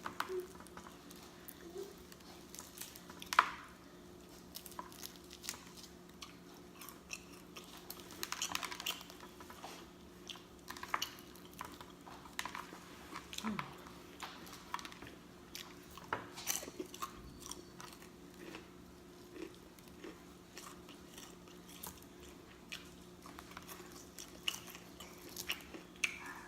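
Mouth sounds of eating fried chicken: irregular chewing and lip smacking with occasional crisper bites, the loudest a little over three seconds in. A faint steady hum runs underneath.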